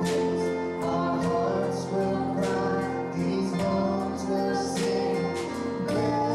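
Christian worship song playing: singing with guitar accompaniment, held notes changing about once a second.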